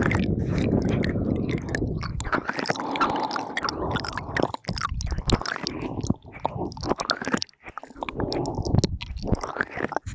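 ASMR mouth sounds made close to a binaural microphone: a dense run of small wet clicks and smacks, with breathy sounds between them.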